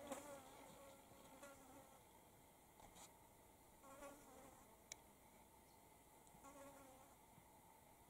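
Faint buzzing of a flying insect passing near the microphone, coming and going three times with a wavering pitch. A few faint sharp ticks fall in between.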